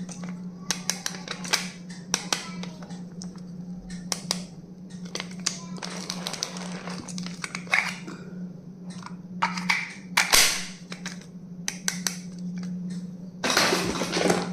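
Repeated sharp clicks, snaps and short rustles from handling plastic stationery and its packaging, over a steady low hum.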